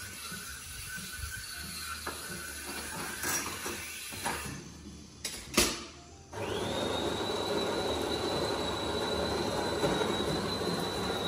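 Automatic bean-to-cup coffee machine running for about five seconds from halfway through: a steady mechanical hum with a thin high whine over it, starting and stopping abruptly. Before it come light clatters of pot lids and one sharp knock.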